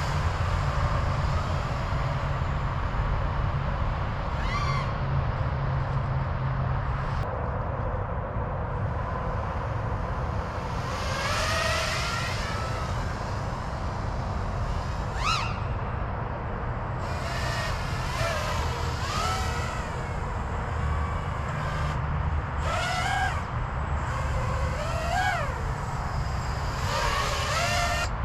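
Five-inch FPV quadcopter on a 6S battery in flight, heard from a distance: its motors whine in repeated swooping rises and falls in pitch every few seconds as it throttles and passes by, over a steady low rumble.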